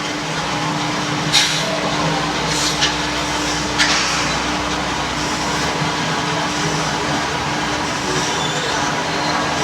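Remote-control monster vehicle model running with a steady mechanical hum and a held tone. Three short bursts of noise come in the first four seconds.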